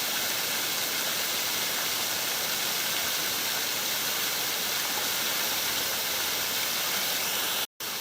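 A small creek waterfall, light in flow, cascading with a steady rushing hiss. The sound cuts out for a split second just before the end.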